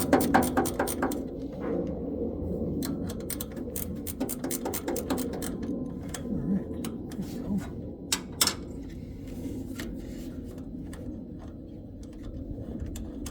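Hand tools working fasteners loose: a ratchet clicking rapidly at first, then scattered clicks and clinks of metal tools and parts over a steady low hum.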